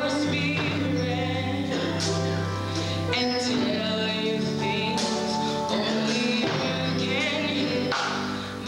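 A woman singing a gospel solo with vibrato into a microphone, accompanied by a church organ holding long sustained chords.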